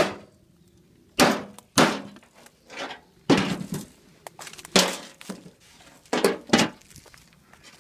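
Hammer blows on rusty metal, a string of sharp strikes at uneven intervals, breaking up a spark plug's ceramic insulator into small pieces to throw at a window.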